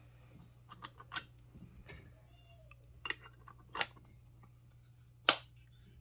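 Light clicks and scrapes of a small black metal radio enclosure being handled as its cover is slid on and seated, with the loudest sharp click about five seconds in. A faint steady low hum sits underneath.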